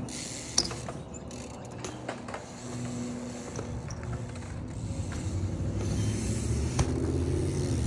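BMX bike rolling on a concrete skatepark bowl, with light creaks and clicks from the bike and a sharp knock near the end as it lands a flip.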